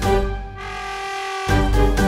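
Background music: held chords over a strong bass, changing to a new chord about one and a half seconds in.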